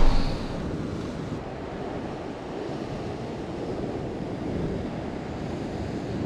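Ocean surf washing against coastal rocks, with wind rumbling on the microphone: a steady rushing noise.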